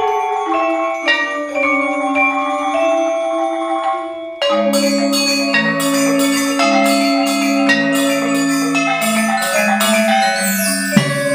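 Percussion quintet playing gamelan-style music on mallet keyboard instruments, with ringing struck notes that sustain and overlap. About four and a half seconds in the whole ensemble comes in with fast, dense strokes over low held tones, and a fresh accent follows near the end.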